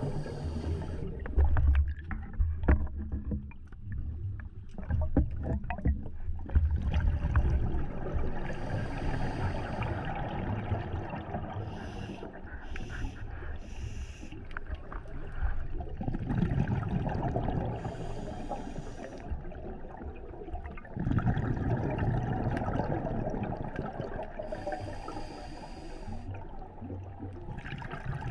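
Scuba diving heard from underwater, picked up through a camera housing: a continuous low bubbling rumble of water, broken every few seconds by a hissing regulator breath.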